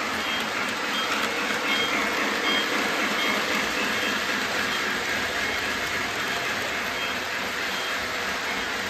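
Train running: a steady rushing noise with short, high-pitched squeaks repeating about twice a second.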